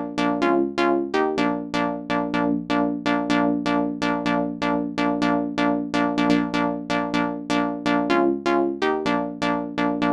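Synth lead from a Native Instruments Maschine sampler playing a looping sequenced pattern of short plucked notes, about five a second, briefly stepping up in pitch twice. Velocity is mapped to the filter cutoff, so each note sounds slightly brighter or duller depending on how hard it was programmed.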